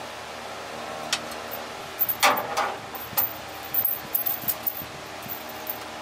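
A hand working inside a steel truck frame rail, fishing for a bolt: scattered light knocks and rustling scrapes, the loudest a couple of seconds in, over a steady background hum.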